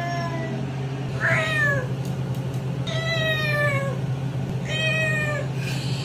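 A cat meowing: a series of long meows, most of them sliding down in pitch, with a steady low hum underneath.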